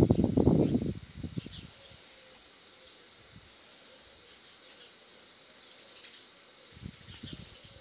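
Outdoor ambience of birds chirping now and then over a steady high insect drone. It opens with about a second and a half of loud, low, uneven rumbling noise, and there is a brief softer patch of it near the end.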